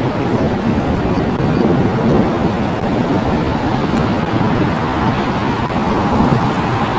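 Jet engines of a British Airways widebody airliner running as it taxis past, a steady, loud rushing noise.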